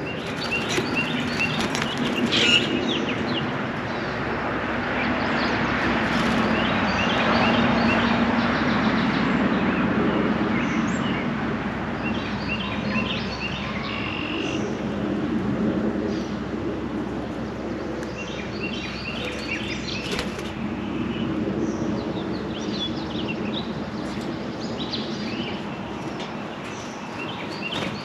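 Songbirds singing around a backyard bird feeder, in repeated short phrases of quick high chirping notes. Under them runs a steady rushing background noise that swells in the middle and then eases.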